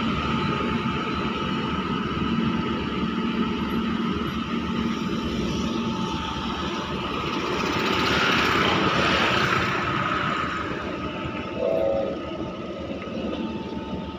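Heavy machinery engine running steadily with a faint high whine. It grows louder for a couple of seconds in the middle, and a brief higher tone sounds near the end.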